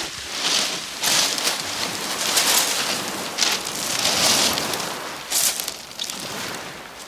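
Footsteps crunching over a shingle beach of rounded pebbles, with small waves breaking and washing over the stones at the water's edge. The noise comes in irregular surges, roughly one or two a second.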